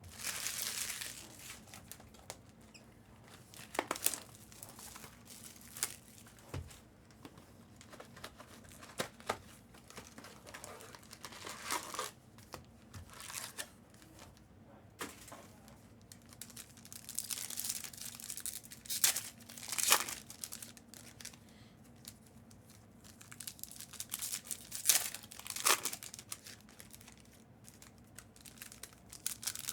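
2024 Panini Prizm retail card packs being torn open, their wrappers crinkling in irregular bursts of rustling.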